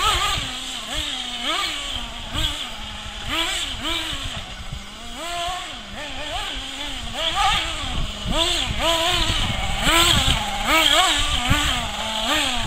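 Kyosho Inferno Neo 1/8-scale nitro RC buggy engine revving up and down over and over, each blip of throttle a rising then falling pitch.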